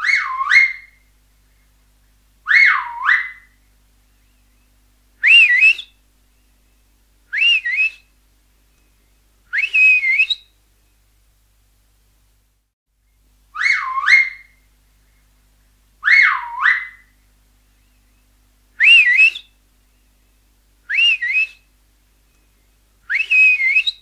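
Finger whistles, about ten separate loud blasts in two identical runs. Each run has two swooping whistles that dip and rise again, then three shorter, higher whistles.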